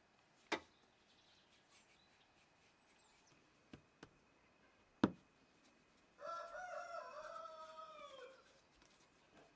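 A rooster crowing once, a call of about two seconds that falls away at the end, starting about six seconds in. Before it come a few sharp knocks, the loudest about five seconds in, from dough being handled on a wooden board.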